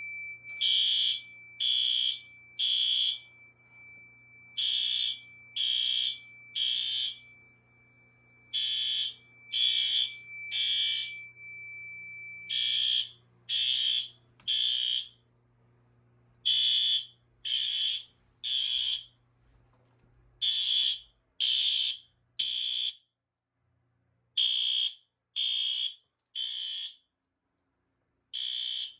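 Fire alarm horns sounding the temporal-3 evacuation pattern: three short high blasts, a pause, then the group again, over and over. A steady high tone under the first few groups stops about a third of the way in.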